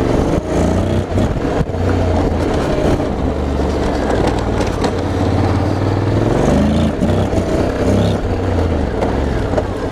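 Honda X-ADV's 745 cc parallel-twin engine running on a rough dirt track, its pitch rising and falling with the throttle, over a steady rush of wind. Scattered short knocks come through as the bike rides over the bumpy ground.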